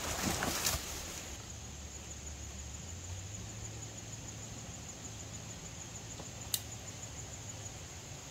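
Footsteps crunching in dry leaf litter for about a second, then a low steady outdoor background with one sharp click about six and a half seconds in.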